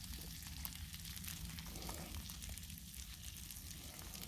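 Faint, steady sizzle of ground-beef-and-breadcrumb slugburger patties frying on a Blackstone flat-top griddle, with small crackles of spitting fat.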